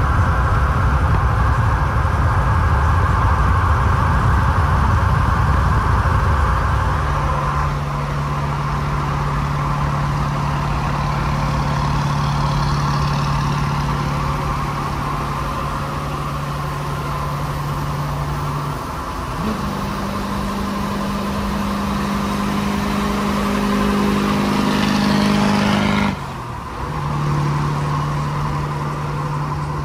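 Highway driving noise heard from a moving vehicle with the window open: loud rushing road and wind noise, then a steady engine drone that steps up in pitch about two-thirds of the way through and drops back near the end.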